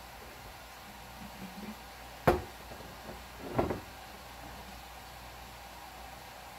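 Two sharp knocks on a kitchen counter about a second apart, the second a little longer: a glass jar and a kitchen knife being set down on a wooden countertop and plastic cutting board.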